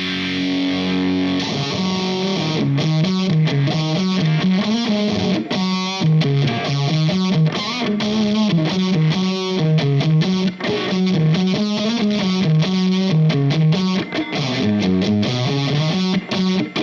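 Electric guitar played through a Valco Bloodbuzz fuzz pedal on its fuzz side. A held distorted chord gives way, about a second and a half in, to a continuous riff of picked notes stepping up and down.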